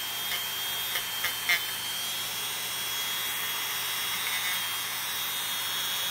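Handheld electric rotary tool running steadily with a high whine, its spinning bit grinding down a thickened toenail.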